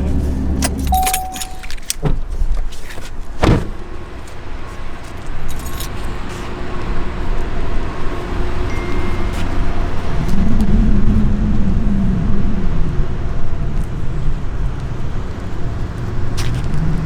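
Vehicle engine idling while warming up, with a low steady rumble. Its pitch rises and falls briefly twice, once about ten seconds in and again near the end. Several sharp clicks and a jangle of keys come in the first few seconds.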